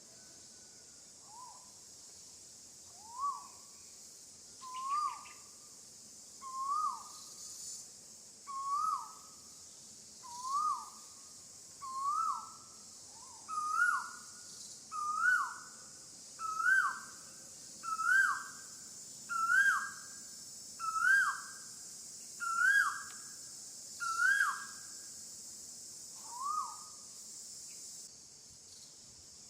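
A bird calls a long series of hooting notes, about one every second and a half. The notes grow slightly higher and louder, and the last is lower and softer. A steady high insect buzz runs beneath and drops away near the end.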